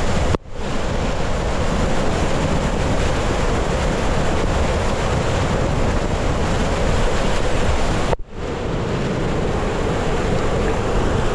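Water and air rushing past a camera riding down a Van Egdom Cyclone 50 tube water slide, a loud steady rush with wind buffeting the microphone. The sound drops out sharply for a moment twice, about half a second in and about eight seconds in.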